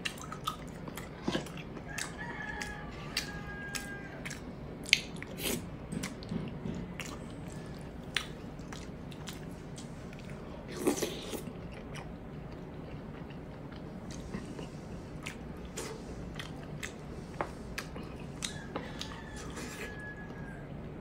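A person chewing and smacking while eating pork hock and rice by hand, with many short irregular wet clicks and crunches from mouth and fingers. The loudest crunch comes about eleven seconds in.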